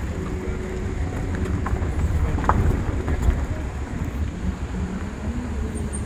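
Car driving on a rough, unpaved mountain road, heard from inside the cabin: a steady low engine and tyre rumble with a few sharp clicks and knocks about two to three seconds in.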